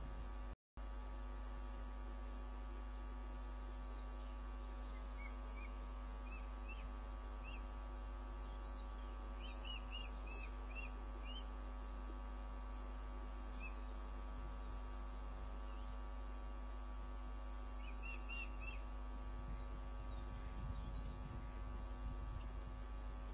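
Ospreys giving short, high chirping calls in clusters of a few at a time, over a steady electrical hum from the nest camera's audio.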